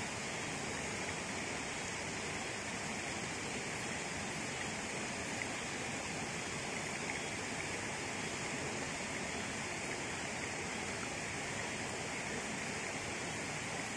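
Steady rush of a jungle stream running over rocks.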